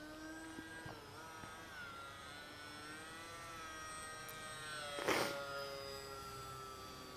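Electric motor and APC 6x4 pusher propeller of a Bixler model plane buzzing in flight, its pitch slowly wavering up and down. There is a brief rush of noise about five seconds in.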